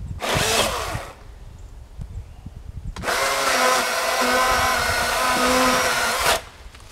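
Battery-powered electric chainsaw cutting through a log: a short burst of the motor just after the start, then a steady run of about three seconds in the cut that stops abruptly. The battery is nearly spent, yet the saw gets through the cut.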